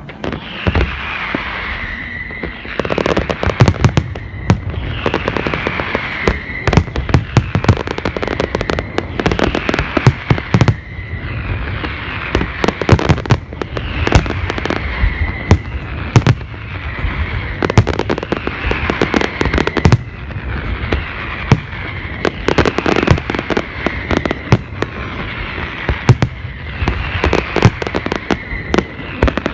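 New Year's fireworks display going off: a dense run of sharp bangs and crackling bursts, with a falling whistling tone repeated about every two seconds.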